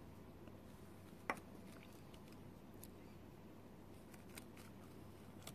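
Faint crinkling and ticking of a foil chocolate-egg wrapper being peeled and handled, with one sharper click about a second in.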